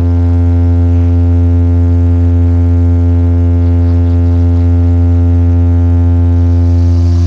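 DJ sound-system speakers playing a loud, steady low bass tone with a buzzy stack of overtones, held without change.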